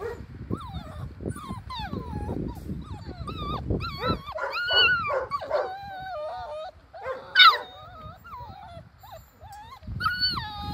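A litter of almost month-old Dalmatian puppies whining and whimpering, high wavering cries overlapping one another, with one sharper, louder yelp about seven and a half seconds in.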